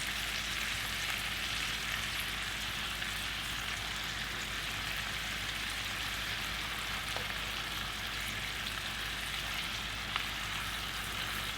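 Redfish fillets searing in a hot pan of butter and olive oil: a steady sizzle.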